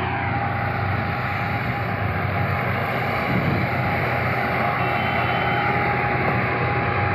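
Sugar cane harvester running steadily as it cuts cane: a constant engine drone with a steady high whine held throughout.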